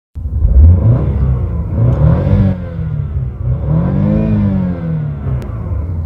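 A BMW car engine revved in Park: the engine note rises and falls twice over a steady low rumble from the exhaust.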